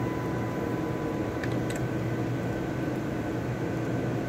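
Steady hum and hiss of fans and ventilation, with faint steady tones running through it. Two light clicks about a second and a half in.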